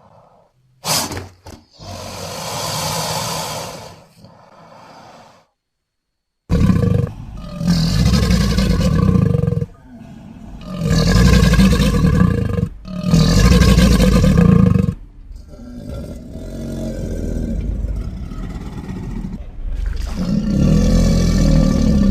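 Film sound effects of King Ghidorah, the three-headed monster from the 2019 Godzilla film, roaring: a short cry and a longer roar, a second's silence, then three loud, pitched roars in quick succession, followed by quieter calls that swell again near the end.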